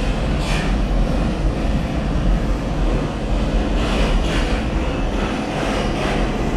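R179 New York City subway train running, a steady heavy rumble of wheels and motors with brief hissing surges about half a second in and again around four seconds.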